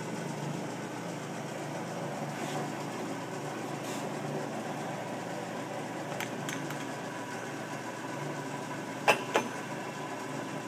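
South Bend engine lathe running with a steady, even hum from its motor and gearing. A couple of light clicks come about two-thirds of the way in, then two sharp metallic clunks near the end as the apron's feed levers are shifted.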